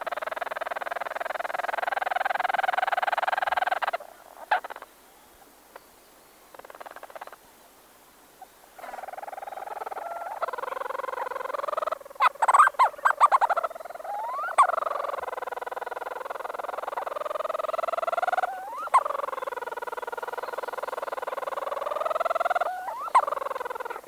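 Two Leach's storm petrels calling close up in a nest burrow: long purring churrs lasting several seconds, broken by short gliding notes, with a quick burst of sharp chattering calls about twelve seconds in.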